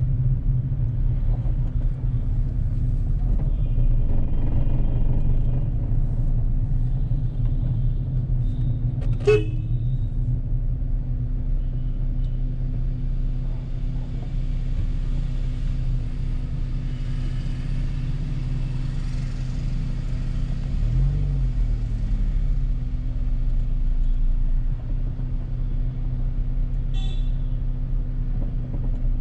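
Steady engine and road rumble of a car driving slowly through city traffic, with car horns tooting several times, the sharpest about nine seconds in.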